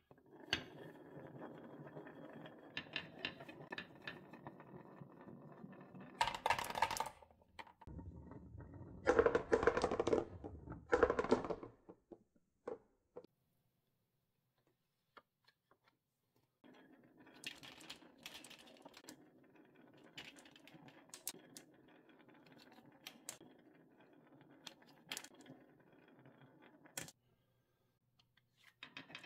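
Marbles rolling along the carved wavy groove of a HABA wooden wave-slope marble run, a steady rattling rumble with louder clattering stretches in the first half. After a few seconds' pause, glass marbles roll and click against one another as they bunch up, until the sound cuts off suddenly.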